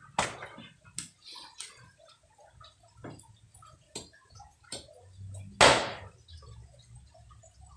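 Steel cleaver chopping thin dry sticks on a round wooden chopping block: a series of sharp chops about a second apart, the loudest about five and a half seconds in.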